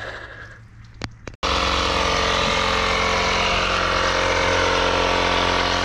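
A vehicle engine idling steadily. It starts suddenly about a second and a half in, after a brief quiet stretch with a couple of clicks.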